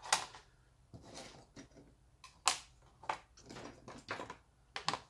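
Thin painted wooden strips being laid down and shifted on a flat wooden board: a series of light, irregular wooden clicks and taps, the sharpest just after the start and about two and a half seconds in, with a quick cluster near four seconds.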